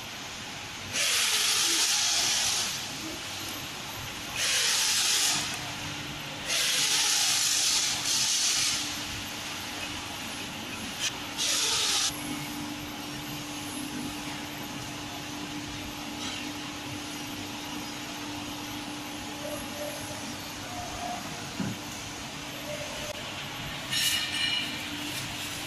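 Several loud bursts of hissing, each one to two seconds long, in the first half. A steady low hum sets in about five seconds in and continues under them.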